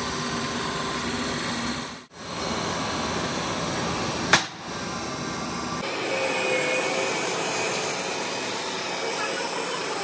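Steady mechanical noise of a metal-cutting machine running while machining a steel truck kingpin. The sound changes abruptly about two and six seconds in, with one sharp click a little past four seconds.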